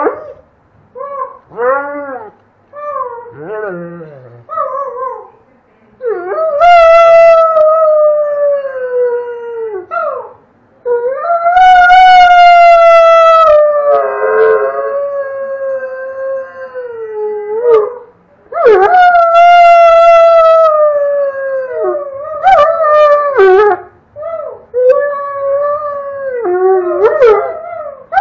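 Doberman howling. The first few seconds are short calls that rise and fall. These give way to long drawn-out howls of a few seconds each, whose pitch drops at the end. Shorter howls come again near the end.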